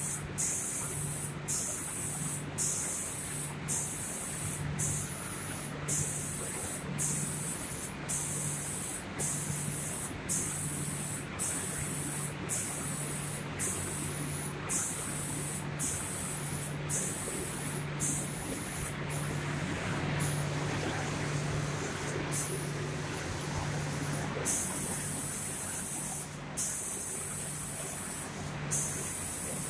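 Spray guns of an automatic paint spraying machine hissing in regular bursts, cutting on and off about once a second, with a low hum that pulses in step. For a few seconds past the middle the spraying runs more continuously before the on-off rhythm returns.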